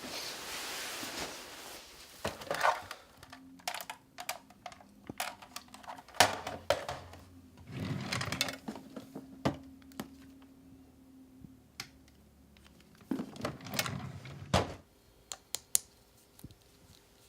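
Irregular knocks, clicks and rustling in a small room, as of objects being handled and moved about. The loudest knocks come about six seconds in and again near fourteen seconds in.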